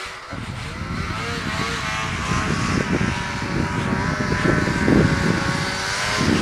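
Arctic Cat snowmobile engine approaching, growing louder, its pitch rising and wavering with the throttle.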